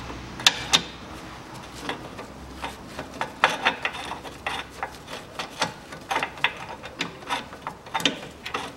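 Hand ratchet clicking in short, uneven runs as a socket on an extension turns a bolt of a new engine mount. Two sharper clacks come about half a second in.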